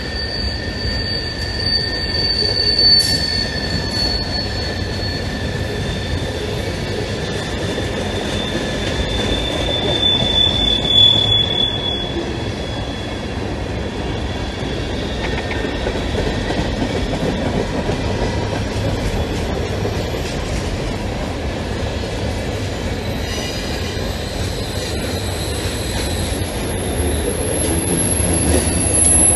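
Mixed freight cars of a manifest train rolling past at close range: a steady rumble of steel wheels on rail, with thin, high wheel squeals that drift slowly in pitch, loudest about ten seconds in.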